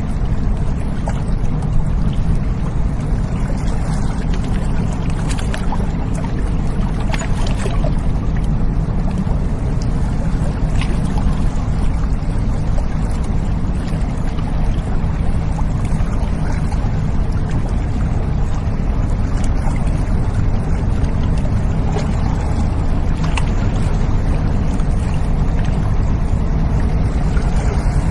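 Container ship's engine running steadily as the vessel passes on a river, a deep continuous drone with a haze of water noise over it and a few faint clicks.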